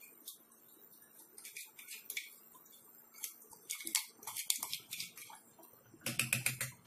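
Silicone spatula scraping thick date paste out of a small steel bowl into a pan and stirring it in: soft, irregular clicks and scrapes, busier and louder near the end.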